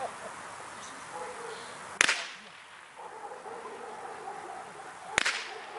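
Two blank-pistol shots about three seconds apart, each a sharp crack with a short echo: the gunfire test fired during IPO heelwork to check the dog's calm under gunfire.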